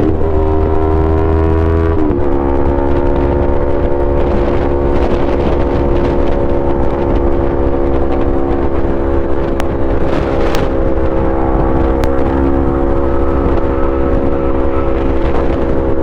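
Yamaha R3's parallel-twin engine running through an Akrapovic full-system exhaust. The note climbs slightly, breaks briefly about two seconds in, then holds at a steady engine speed with a heavy low rumble underneath.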